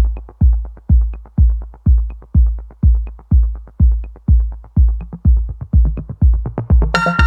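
Electronic dance music: a heavy kick drum beating about twice a second, with a bright synth line coming in near the end.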